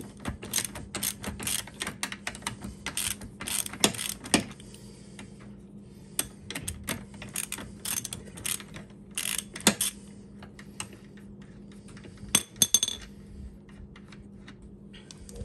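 Metal clicks and clinks of a hand wrench working the nut of a car's suspension arm link, in irregular clusters that are densest near the start. A faint steady hum runs underneath.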